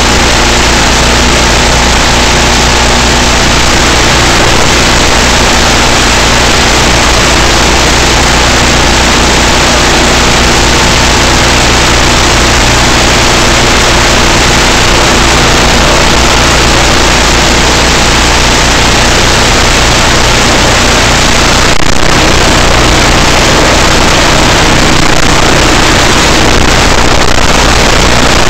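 Electric motor and 7x4 propeller of a Skyhunter Nano running at steady cruise throttle, heard as a steady hum under heavy hiss over the analog FPV video link. Near the end the throttle is cut and the motor hum fades, leaving mostly hiss.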